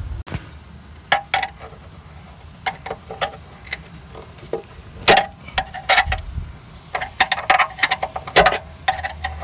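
A thin metal pick scraping and clicking in a crevice of a Mazda Miata's body panel, prying at a lodged coin, with irregular light metallic clinks that ring briefly. The clicks come in scattered clusters and grow busier toward the end.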